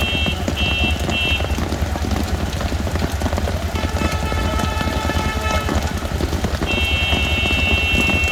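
Heavy rain falling steadily on a city street, with a constant deep rumble underneath. High steady tones sound three times: at the start, around the middle, and again near the end.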